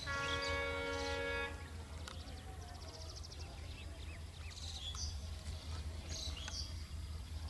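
A diesel locomotive horn sounds one steady blast of about a second and a half as the train approaches. Birds then chirp and trill over a low, steady rumble.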